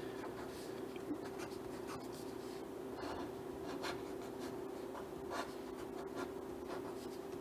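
Ink pen drawing on paper in quick, scratchy strokes, with a steady low hum underneath.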